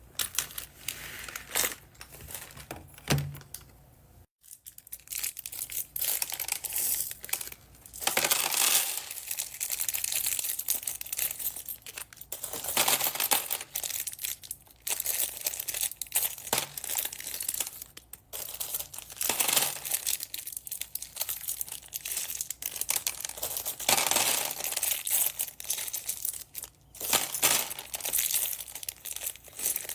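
Plastic packaging bags crinkling and rustling as they are handled and opened, in irregular waves with sharp clicks between.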